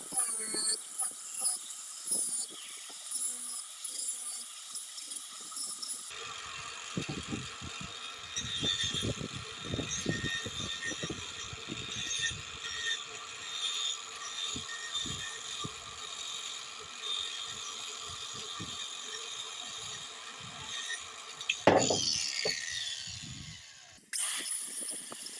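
A hand tool scraping a wooden mug in short, irregular strokes, with one louder knock near the end.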